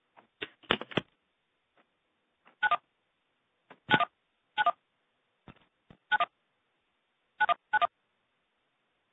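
Telephone keypad touch-tones on a conference call line: a series of short two-tone beeps, some in quick pairs, after a few clicks in the first second.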